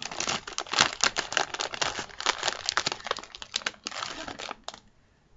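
Packaging crinkling and crackling, a dense run of sharp crackles that stops near the end.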